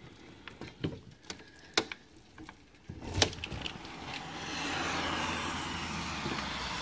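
A few sharp clicks and knocks, the loudest about three seconds in, then from about four seconds in a steady hiss of falling rain.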